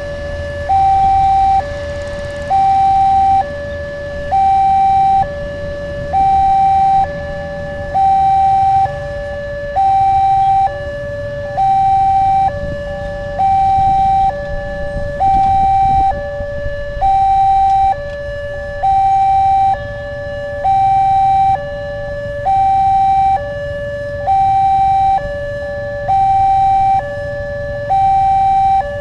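Railway level-crossing warning signal from the horn loudspeaker on the signal post: two steady tones, one high and one low, alternate about every second, the higher one louder. A low rumble runs underneath.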